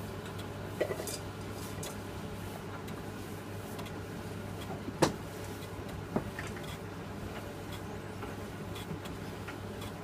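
Philips D180 tumble dryer running with a steady low motor hum as the drum turns. A few sharp knocks come through, the loudest about five seconds in.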